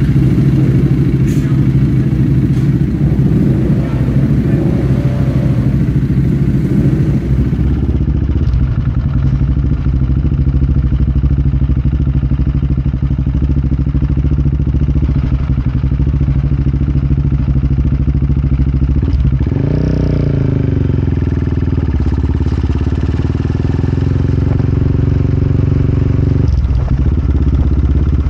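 Kramer 690 race motorcycle's single-cylinder engine running at low speed, heard close up from the bike's onboard camera, with one brief blip of revs rising and falling about twenty seconds in.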